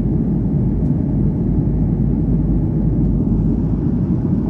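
Steady low rumble of a Boeing 737-800's engines and airflow, heard from inside the passenger cabin while the airliner descends.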